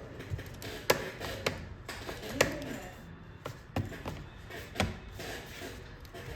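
Laptop bottom cover being pressed back onto the chassis, its clips snapping into place with a handful of sharp clicks and taps spread a second or so apart.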